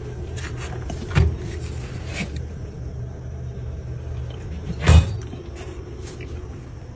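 Steady low rumble of a running LS V8-swapped Jeep Wrangler, with two sharp knocks, one about a second in and a louder one near five seconds.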